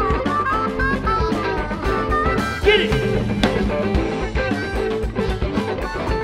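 Live blues band playing an instrumental passage: harmonica wailing with bent notes over electric guitar and a drum kit keeping a steady beat.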